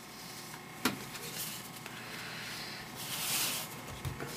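Baseball trading cards being handled on a table: a light tap about a second in, then a brief papery rustle of cards sliding around three seconds in.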